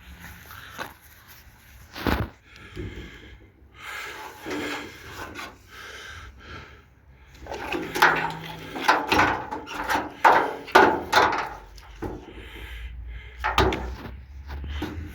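Knocks, clatters and rubbing of hard objects being handled: a sharp knock about two seconds in, a quick run of knocks from about eight to eleven seconds, and another knock near the end.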